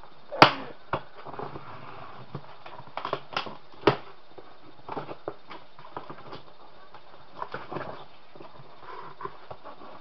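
Irregular clicks and knocks from kitchen items being handled on a countertop, with a sharp knock about half a second in and another about four seconds in.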